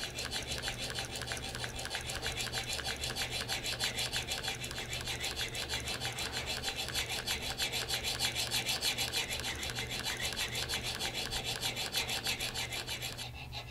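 Steel pivot burnisher rubbing on the pivot of a Hamilton 992 escape wheel turning in a Jacot tool, driven back and forth by a bow: a steady, rapid rhythmic rubbing that fades just before the end. It is the burnishing of a worn pivot to smooth and harden it.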